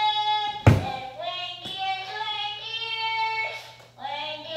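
A child singing a slow melody of long held notes. A sharp thump about two-thirds of a second in is the loudest sound, with a smaller click about a second later.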